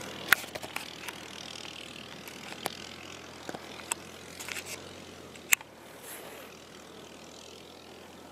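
Suzuki LTZ 400 quad's single-cylinder four-stroke engine running in the distance as the quad drives away, a faint steady hum that fades out about five and a half seconds in. Several sharp clicks sound over it.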